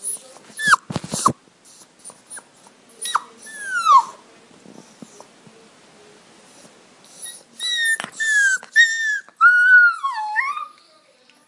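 Nursing puppies whimpering and squealing: short high whines that fall in pitch, a few in the first four seconds and then a run of them near the end. A couple of sharp knocks about a second in.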